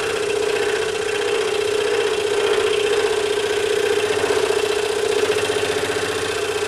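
DeWalt scroll saw running steadily, its thick number 5 blade reciprocating as it cuts through a thick block of wood.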